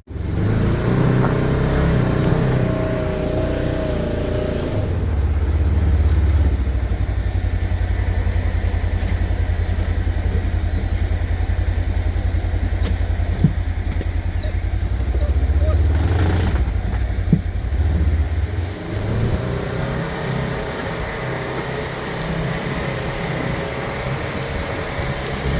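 A vehicle engine running throughout, its note shifting up and down as it drives, with a couple of sharp clicks near the middle.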